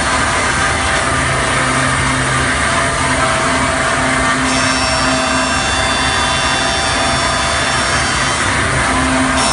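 CNC wood lathe's vertical router spindle running steadily at high speed as it mills a curved profile into a clamped wooden blank, giving several steady whining tones over a continuous rush of cutting noise. The higher tones shift about halfway through.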